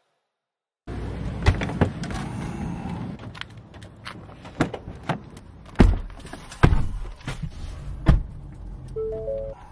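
Ford Super Duty pickup's driver door being handled and opened and someone getting into the cab: a series of clunks and knocks starting about a second in, with a short three-note chime from the truck near the end.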